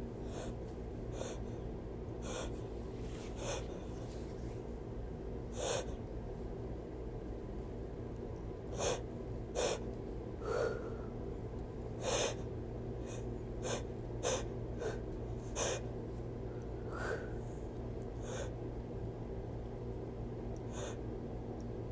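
A person taking repeated short, sharp breaths through the nose and mouth, gasping and sniffing at irregular intervals in the build-up to a sneeze, over a steady low hum.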